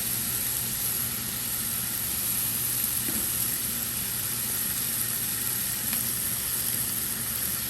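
Seared chicken cutlets sizzling steadily in a frying pan with tomato sauce over low heat, an even hiss.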